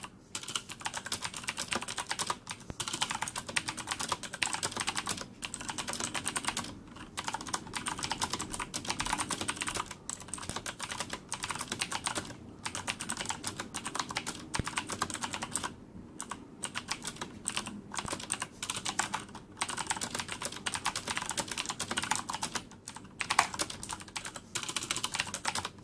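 Fast typing on a Corsair K70 mechanical keyboard with Cherry MX Blue switches and no O-rings: dense runs of sharp clicky keystrokes with brief pauses between bursts, the keys bottoming out with no dampening.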